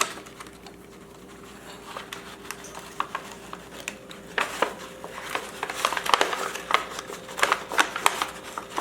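Stitching thread being pulled tight through awl-punched holes in faux leather, with crinkling of the material and scattered small clicks and rasps that get busier from about halfway.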